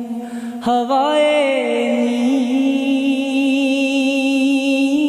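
A single voice singing a Punjabi naat in a slow, drawn-out melody. After a short break under a second in, it comes back in and holds the word 'hawaye' as one long wavering note.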